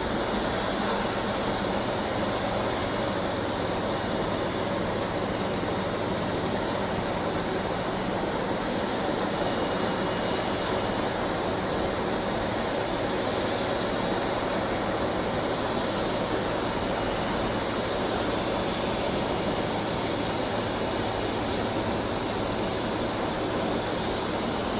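Jet engines of a Boeing 777-300ER, GE90 turbofans, running steadily: an even noise with a faint high whine.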